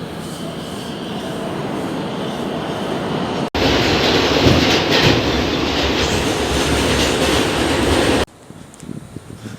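A subway train running, a loud steady rush of wheel and track noise. It builds over the first few seconds, jumps louder about three and a half seconds in, and drops off abruptly near the end.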